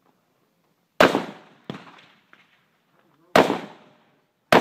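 Three rifle shots from an AR-style semi-automatic rifle, the first about a second in, the next two a little over two seconds and then about a second apart, each followed by a short echoing tail. A fainter crack comes soon after the first shot.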